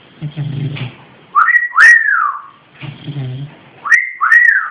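Whistling, given twice: each time a short rising note, then an arching glide that rises and falls away.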